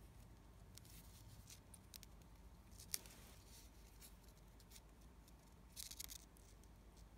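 Faint clicks and rustles of fishing line being handled and drawn through the fingers around a small metal knot-tying tool while tying a nail knot. One sharper click comes about three seconds in, and a short rustling patch near the end.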